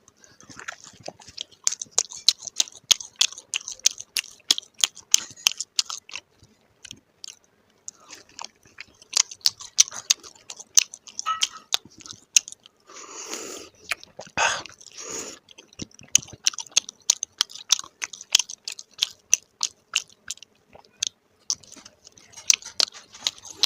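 A person chewing crispy paratha, with quick runs of crisp crunches broken by a couple of short pauses.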